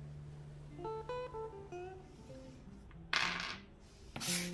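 Background music of plucked acoustic guitar playing a melody over a held bass note. About three seconds in and again near the end come two short bursts of noise from handling on the table.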